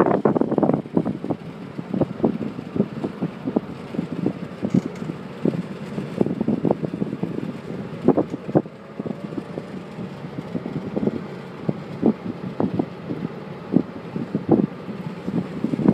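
Wind buffeting the microphone through an open car window while driving, in irregular gusts over a low road rumble.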